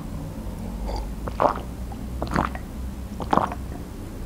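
A person drinking from a glass, swallowing in short gulps about once a second.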